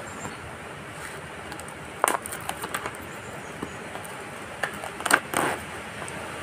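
Hands unwrapping and handling a plastic-wrapped box of tealight candles, making crinkling rustles and small clicks. The rustles come in short bursts about two seconds in and again, louder, about five seconds in, over a steady faint hiss.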